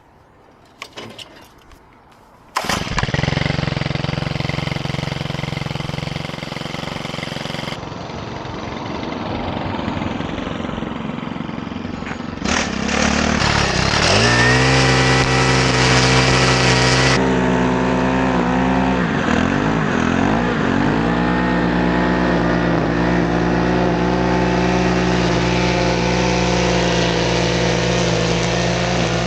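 A few clicks, then a small petrol engine on lawn-care equipment starts abruptly and runs steadily. About halfway through it gets louder, dips in pitch twice briefly, then settles into a steady run.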